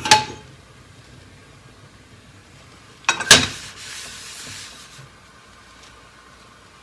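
Paper towel wiping vegetable oil around a heated frying pan: a knock about three seconds in, then a second or two of soft rubbing hiss.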